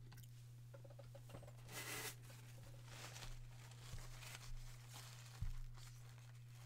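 Faint handling noises: a paper tissue rustling and crumpling as it wipes the dispensing needle, with light clicks and a sharp knock from the plastic dispenser about five seconds in.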